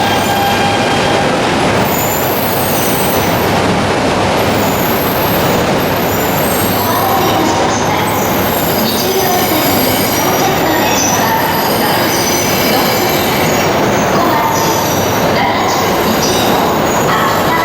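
Shinkansen train running along the platform: a loud, steady rumble of wheels on rail, with squealing and whining tones that come and go.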